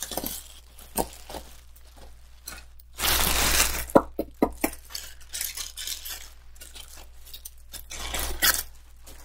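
Clear plastic bag around a handbag rustling and crinkling as it is lifted and handled, with scattered light clicks and a louder stretch of crinkling about three seconds in.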